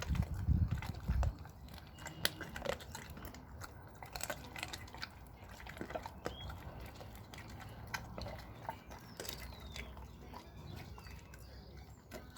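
American bulldog chewing raw meat and bone: irregular wet crunches and clicks, with a few heavier low thuds in the first second or so.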